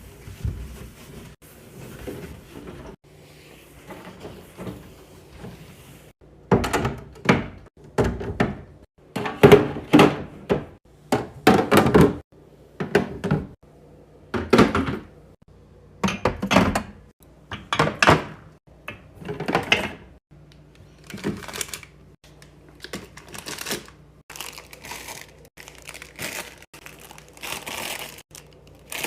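Snacks and drinks being set down one after another while a fridge or snack drawer is restocked: quiet handling at first, then sharp thunks and clacks about once a second from roughly six seconds in.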